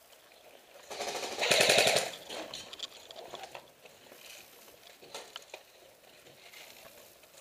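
Airsoft gun firing one full-auto burst of about a second, a rapid even rattle starting about a second in. Fainter scattered clicks and crunches follow.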